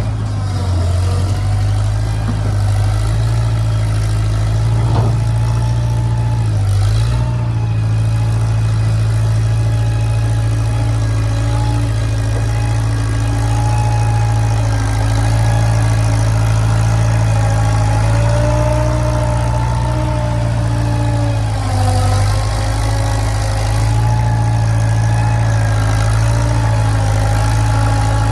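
An engine running steadily at a constant speed, with a higher whine over it that wavers slightly in pitch and small changes in load about seven and twenty-two seconds in.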